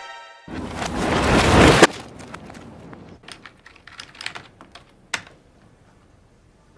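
A loud, noisy crash-like burst, then a computer keyboard being typed on in scattered clicks for about three seconds before it goes nearly quiet.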